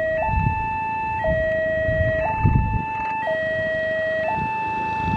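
Railway level-crossing warning alarm sounding a two-tone signal, alternating high and low about once a second, warning of an approaching train. Dull low thumps sound underneath.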